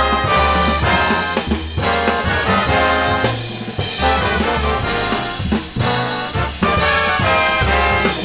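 Big-band jazz music, with a brass section of trombones and trumpets carrying sustained chords over a bass line.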